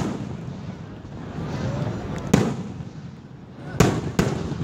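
Aerial fireworks shells bursting with sharp bangs: one at the start, another about two and a half seconds in, and two in quick succession near the end.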